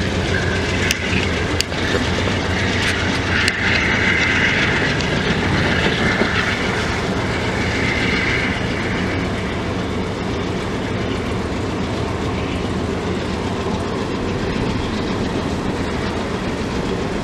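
Amtrak Downeaster passenger train running past, a steady loud rumble of wheels on rail. A few sharp clicks come in the first few seconds, and a higher squeal rides over the rumble from about three to nine seconds in.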